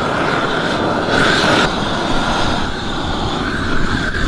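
Propane roofing torch burning with a steady rush of flame as it heats the underside of a torch-down modified bitumen membrane.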